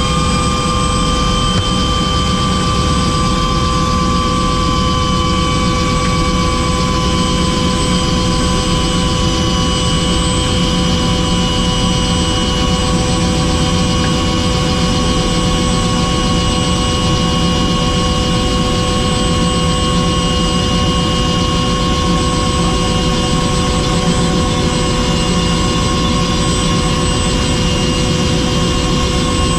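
Helicopter's turbine engine and rotor running steadily: a constant whine of several steady tones over a loud, even rush.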